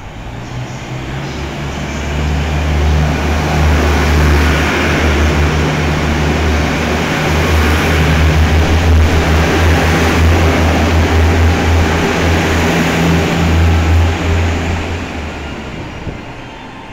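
JR East KiYa E195 series diesel rail-transport train passing slowly at a station platform: a steady low engine drone. It builds over the first few seconds, holds while the long train goes by, and fades over the last two seconds.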